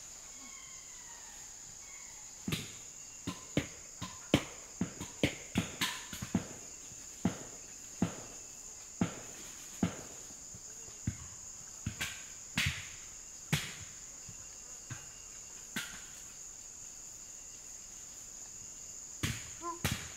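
A steady, high-pitched insect chorus of crickets or cicadas in tropical forest. Over it comes a run of about twenty sharp knocks or cracks at irregular intervals, a couple a second at first and then thinning out. A few short pitched calls come near the end.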